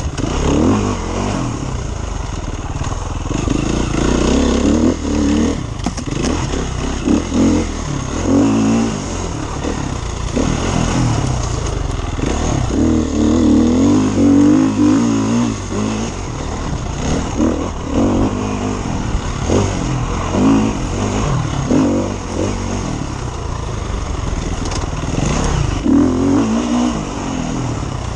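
KTM enduro motorcycle engine, heard from the bike's onboard camera, revving up and down again and again as the throttle is opened and closed on a dirt track.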